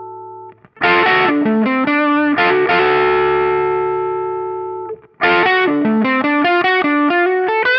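LP-style electric guitar with distortion, played with the pickup selector in the middle position and the neck pickup's volume turned down so the blend leans toward the bridge pickup. A chord rings out, a short picked phrase ends in a long ringing chord, and about five seconds in a quicker picked riff begins.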